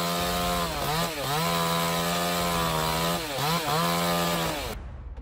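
Two-stroke chainsaw running at high revs, most likely cutting wood. Its revs dip briefly twice and recover, and the sound cuts off a little before the end.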